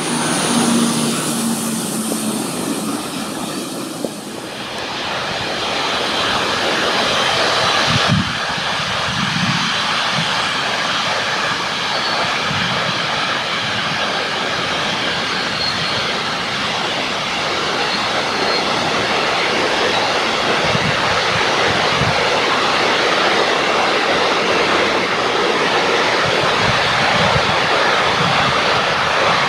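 Freight train of container wagons rolling past: a steady rush of wheels on rail with low knocks now and then, growing slightly louder toward the end. In the first few seconds, the engine hum of a yellow rail-mounted track-maintenance vehicle passing.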